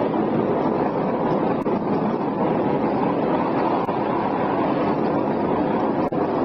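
Steady loud rushing noise of a three-wheeled downhill cart rolling fast on asphalt: wheel rumble on the road mixed with wind on the microphone, with a few faint clicks.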